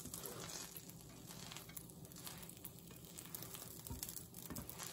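Butter sizzling faintly and steadily in a frying pan under a grilled ham and cheese sandwich. A couple of light taps from the spatula and knife on the pan come about four seconds in and near the end.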